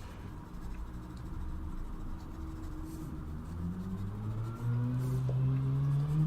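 Mechanical pencil scratching across paper in quick sketching strokes. Over the last second and a half a person hums low, the pitch slowly rising.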